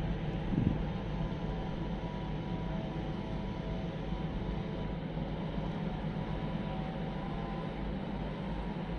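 Tugboat diesel engines running steadily, a low drone with a steady hum over it. A brief gust of wind buffets the microphone about half a second in.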